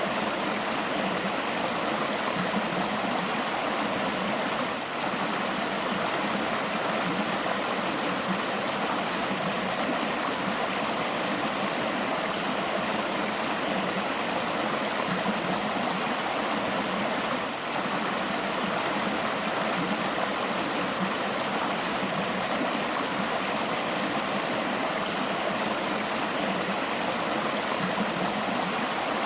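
River water flowing and babbling steadily, a constant rushing burble.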